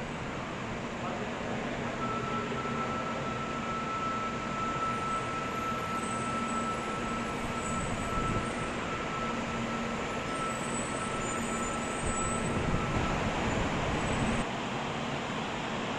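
Train running, a steady rumble and hiss with a thin, steady high whine from about two seconds in until near the end.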